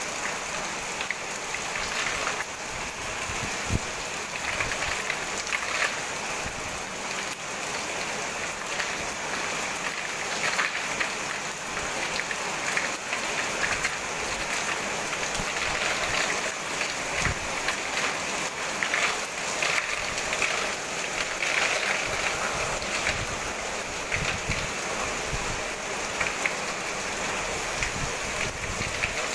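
Hailstorm with heavy rain pelting down: a dense, steady patter with many sharp ticks of hailstones striking.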